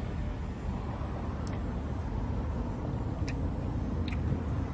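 Steady low rumble of motor-vehicle noise, with about three faint, brief clicks.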